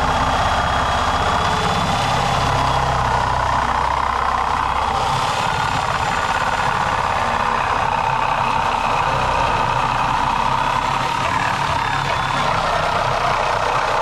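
Reciprocating saw with a Diablo blade running steadily as it cuts through the steel shell of a water heater tank.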